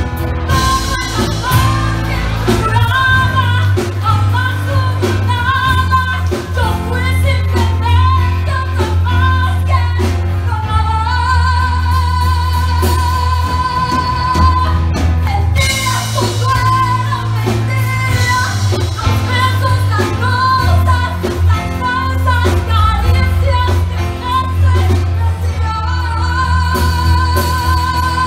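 Live band playing with a woman singing lead over electric guitar, keyboard and drum kit, with a heavy bass. She holds a long note with vibrato about halfway through and again near the end.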